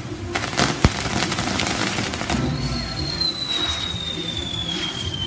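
Fireworks on a castillo fireworks tower: crackling with several sharp cracks and one loud bang in the first second. About halfway through, a high whistle sets in and slowly falls in pitch as it burns.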